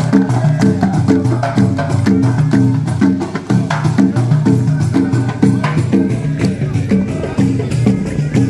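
Rhythmic traditional music led by drums, beating in a steady, repeating pattern.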